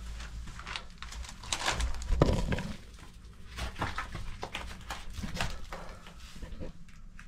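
Footsteps and knocks on old wooden boards and stairs in a small enclosed space, an uneven run of thuds with one louder thump a couple of seconds in.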